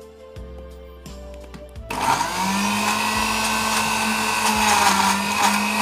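Philips countertop blender motor switching on about two seconds in, rising quickly to a steady whine as it churns tongkol fish and spices into a thick paste that gets stuck in the jar.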